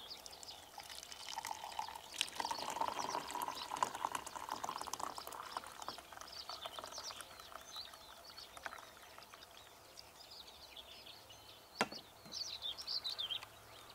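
Tea being poured into a cup, a light liquid pour lasting a few seconds. Near the end come a single sharp knock and brief high bird chirps.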